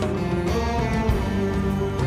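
Rock band playing live: held chords, with one line gliding upward about half a second in.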